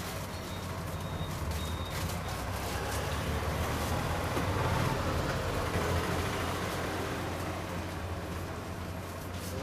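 Street traffic: a motor vehicle passing close by, its noise swelling to a peak about halfway through and then fading, over a steady low rumble.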